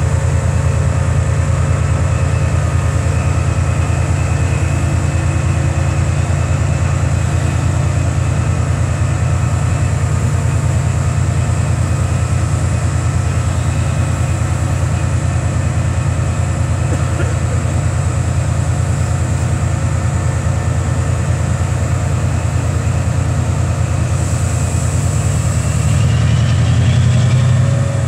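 Direct Rail Services Class 88 locomotive idling at the platform, a steady low engine drone. Near the end it gets louder and a rising whine comes in as the locomotive powers up.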